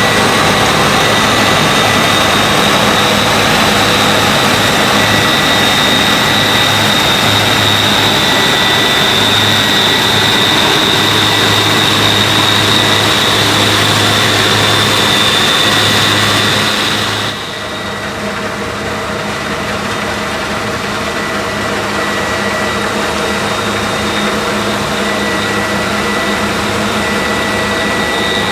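New Holland CX880 combine harvester running at work, a steady machine noise with a high whine over a low hum. About two-thirds of the way through the sound changes suddenly, becoming a little quieter and duller.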